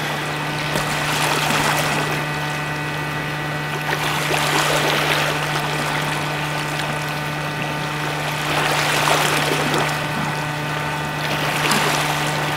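Small waves washing against a rocky shoreline, swelling and falling back every few seconds, over a steady low hum.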